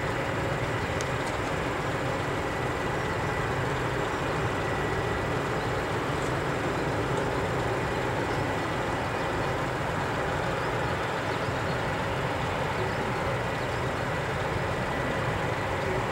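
Four-engine Allison T56 turboprops of a P-3C Orion running at low power while the aircraft taxis, a steady drone with a constant high whine over it.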